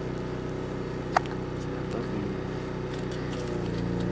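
A steady low hum, with one short, sharp sound about a second in.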